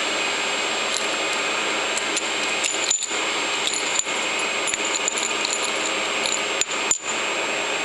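A few light metallic clicks as a socket-head cap screw fitted with copper washers is handled and pushed into a bolt hole in a lathe carriage. They sit over a steady background whir.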